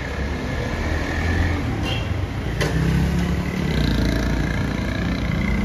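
A Hyundai sedan and then motorcycles driving past close by, their engines and tyres making a steady traffic noise, with two sharp clicks a little after halfway. The sound cuts off suddenly near the end.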